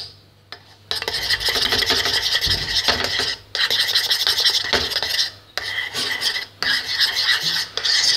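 A spoon rapidly stirring and beating a thick, foamy soap mixture in a bowl, scraping against the bowl's sides: a continuous rasping scrape that starts about a second in and comes in about four stretches with brief pauses between them.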